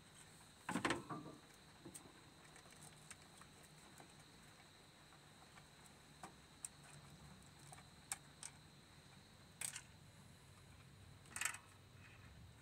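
Golden hamster moving inside plastic tube pods: scattered light clicks and scratches of claws on plastic, with three louder scrabbling scrapes, about a second in, near ten seconds and about eleven and a half seconds in.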